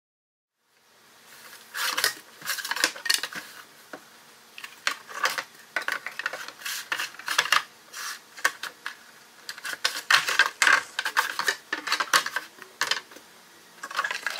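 Cardboard jigsaw puzzle pieces clicking and rattling against each other and the table as they are sorted by hand, in irregular bursts that start about two seconds in.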